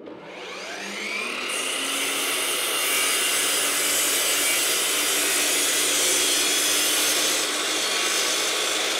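Sliding mitre saw starting up, its motor whine rising over about the first second and a half, then running steadily at full speed while cutting a siding board.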